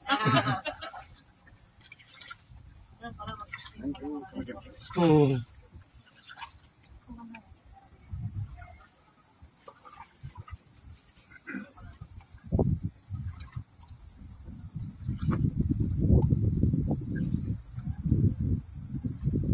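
Steady, high-pitched chorus of insects in the mangroves, running unbroken. A few short voice-like sounds come near the start and about five seconds in, and a low rumble joins in the last few seconds.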